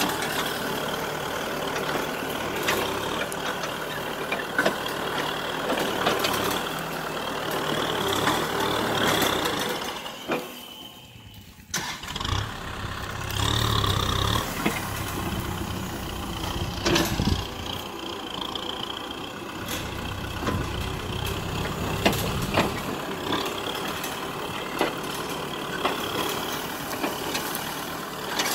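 Kubota M6040SU tractor's four-cylinder diesel engine running steadily under load as its front blade pushes soil along a bank, with scattered knocks from clods and stones. About ten seconds in, the sound drops away for a moment. It then comes back deeper and heavier for a few seconds.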